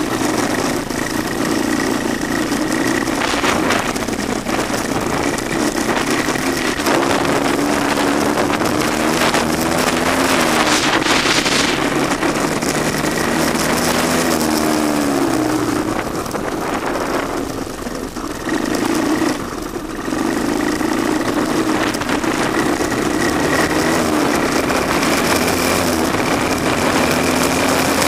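A 1982 Honda ATC185S three-wheeler's single-cylinder four-stroke engine running as it is ridden, its note rising and falling in pitch with the throttle.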